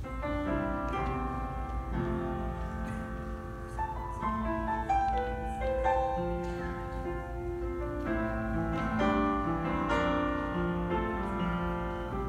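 Upright piano playing, a slow line of distinct notes over chords, each note struck and then held.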